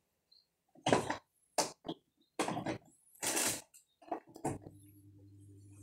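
A run of short knocks and scuffs from someone moving about, then about three-quarters of the way in a click and a steady low electrical hum that starts as a light is switched on.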